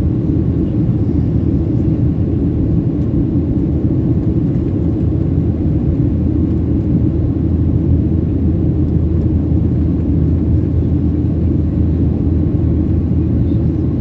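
Steady low cabin drone of a Boeing 737-800 in flight: CFM56-7B engine and airflow noise heard from inside the passenger cabin.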